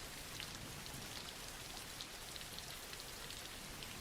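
Steady soft rain falling, with scattered individual drops ticking on a surface.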